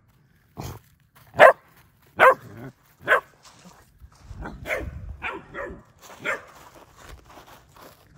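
German Shepherd puppy barking in short, separate barks about once a second, then a quicker run of barks around the middle, fainter near the end. The puppy is alarm-barking at a fake deer it is scared of.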